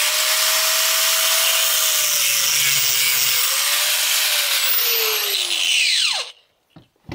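Angle grinder with a cut-off wheel running at speed, used to slice an exhaust manifold flange to free a broken stud. It is switched off about six seconds in, and its whine falls as the wheel spins down. A light click follows near the end.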